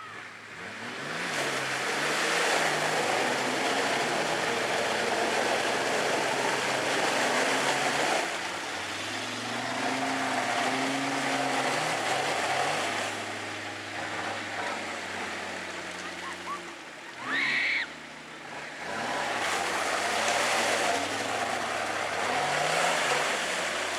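Nissan Patrol 4x4 engine driving off-road at low speed, its note rising and falling under a broad rushing noise. A brief high-pitched squeal comes about 17 seconds in.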